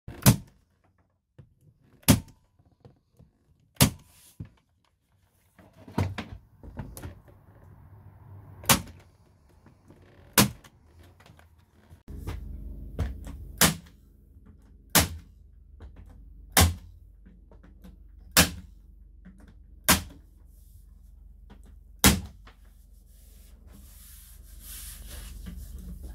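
Corded electric nail gun firing into timber framing and plywood, a sharp single shot every one to three seconds, about a dozen in all, with lighter knocks of handling between shots.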